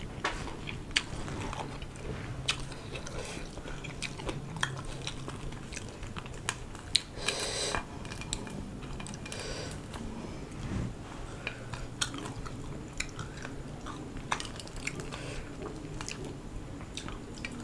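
Close-up chewing and crunching of crisp fried small fish, with many sharp mouth clicks and lip smacks scattered through, and a short hiss of breath about seven seconds in.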